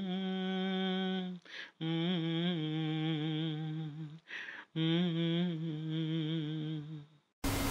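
A man's voice sings a slow, wordless melody in three long held phrases, with short breaks between them. A steady hiss starts near the end.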